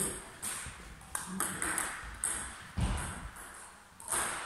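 Table tennis ball clicks: about half a dozen sharp pocks at irregular intervals as a celluloid ball bounces on the table and is struck by a bat, with one duller thump near the middle.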